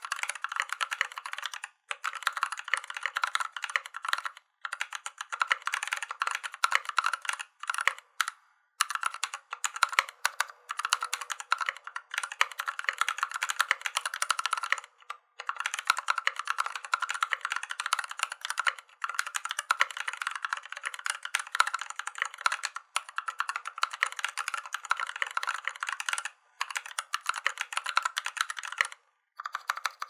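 Continuous fast typing on a NovelKeys NK65 aluminium-case mechanical keyboard with lubed and filmed NovelKeys Cream linear switches, lubed stock stabilizers, a silicone dampening sheet and PBT keycaps. It is a dense run of keystrokes broken by a few brief pauses.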